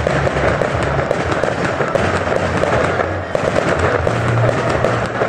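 Fireworks display: aerial shells bursting amid a dense, rapid crackle of many small pops.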